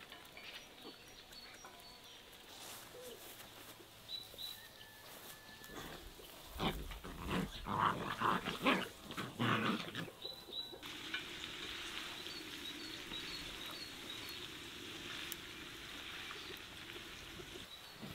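A dog vocalising in a rough burst of sounds for several seconds, starting about six seconds in, over quiet outdoor ambience with faint bird chirps. A steady hiss follows.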